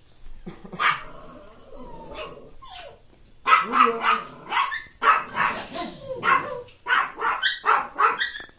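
A dog barking in a quick run of short barks, about two a second, starting about three seconds in.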